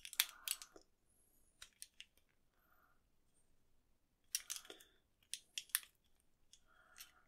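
A plastic tube-light end cap being cut by hand: sharp snips and crackles of the plastic giving way, in several short bursts with pauses between.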